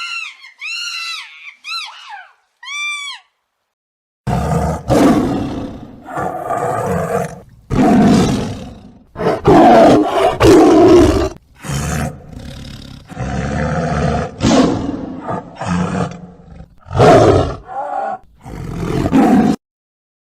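About five short, high chirping calls that rise and fall in pitch, then, after a second's pause, a large animal roaring and growling in a long series of loud, deep, rough calls with short breaks between them.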